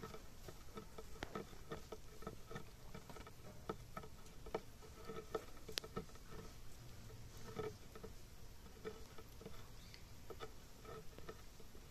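A Shiba Inu puppy gnawing and licking at a gap between wooden deck boards: faint, irregular small clicks and scrapes of teeth and tongue on wood.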